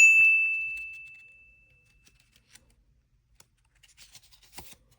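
A single bright chime, like a small bell, struck once and ringing out on one clear high note that fades away over about two seconds. Faint rustling and a soft tap follow near the end.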